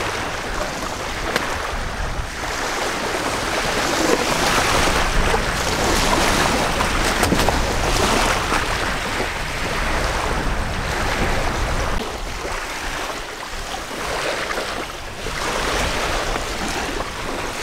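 Wind-driven small waves washing onto a loch's shingle shore, with wind gusting across the microphone in a low rumble; the wash swells and eases.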